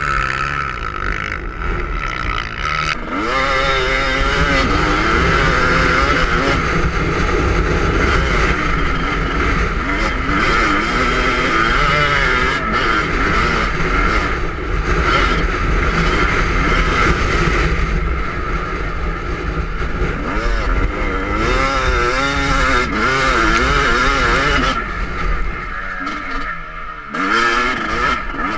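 A Yamaha YZ250 two-stroke motocross engine is ridden hard on a sand track, its pitch repeatedly rising and falling as the throttle is worked through turns and straights. Wind buffets the microphone under the engine note. The engine eases off briefly near the end, then picks up again.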